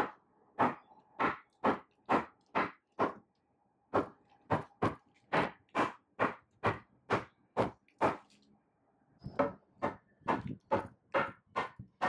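Mallet striking the old wooden table frame in a steady run of sharp knocks, about two to three a second, with two brief pauses. The blows are knocking apart the leg-and-rail mortise-and-tenon joints to take the frame down.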